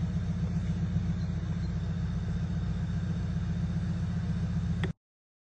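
A car engine idling steadily with a low rumble, cutting off suddenly near the end.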